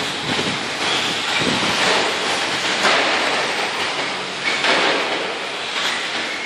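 Radio-controlled off-road cars running on a dirt track: a steady rushing noise of motors and tyres on dirt that swells several times as cars pass close or accelerate.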